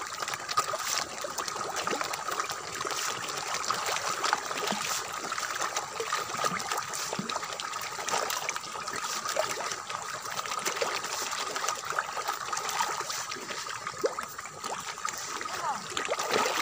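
A shoal of common carp and tilapia thrashing at the pond surface as they feed, a continuous patter of many small splashes and gulps. A thin steady tone runs faintly underneath.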